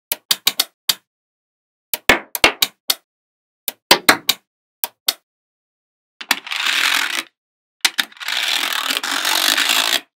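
Small magnetic balls snapping together in quick clusters of sharp clicks, followed by two stretches of steady rasping noise, the second about two seconds long.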